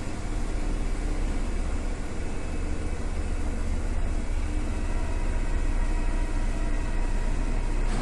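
A Paris Métro MF77 train stands at the platform with a steady low hum and hiss from its running equipment. Nothing starts or stops.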